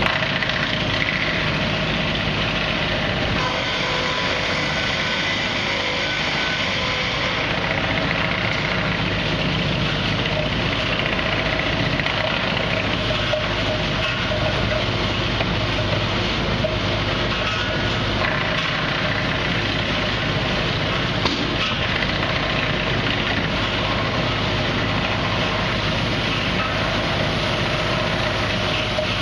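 Steady, unbroken din of sawmill machinery running, with an engine-like running note under it and a brief tick about three quarters of the way through.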